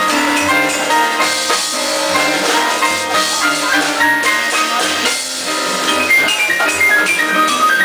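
Live Latin jazz: a grand piano plays quick runs of short notes over drums and percussion.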